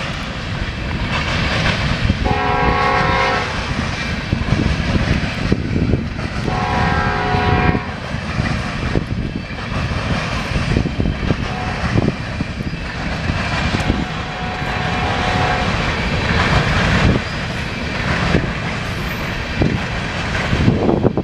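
Freight train of tank cars rolling past, a steady rumble with wheel clatter. A multi-tone locomotive horn blows twice, briefly, about two and six and a half seconds in.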